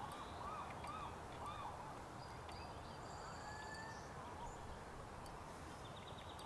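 Birds calling over a steady outdoor hiss: a run of four short arched calls in the first second and a half, then thinner, higher calls.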